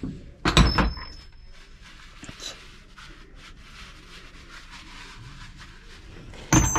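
Metal hand tools clinking: a clatter about half a second in and another near the end, each with a short high metallic ring, with quieter rustling and handling of tools between them.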